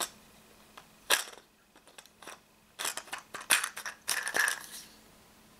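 Speed loader loaded with steel balls being slid onto the rail of an Umarex HDP50 pistol: sharp clicks and scraping, one click about a second in, then a quick run of clicks and scrapes from about three to four and a half seconds in.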